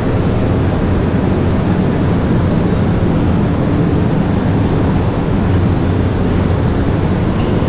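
Shopping-mall concourse ambience: a steady, even rumble and hiss with no distinct events standing out.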